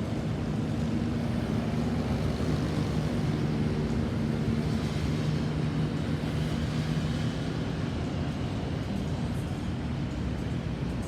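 A motor vehicle's engine running steadily, a low hum over road noise.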